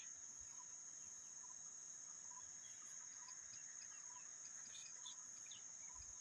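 Faint, steady high-pitched drone of forest insects such as crickets, with soft scattered chirps over it.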